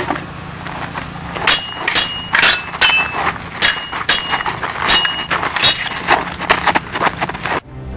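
Sword-fight clashes of makeshift stick swords: a quick run of sharp clacks, about eight strong hits over four seconds, many carrying the same short ringing tone, then a few fainter ones.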